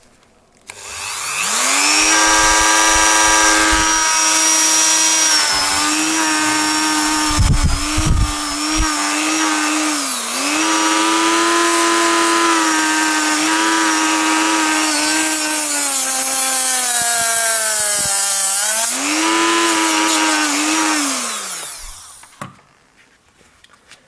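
Dremel rotary multitool at speed setting 8, its thin cut-off wheel grinding through a thick copper power cable held in a vise. The motor spins up to a steady high whine, its pitch sagging several times as the wheel bites under load, then winds down near the end.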